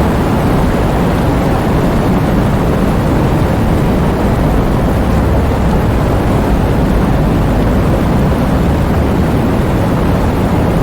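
Heavy rain in strong wind: a steady, dense wash of noise weighted toward a deep rumble.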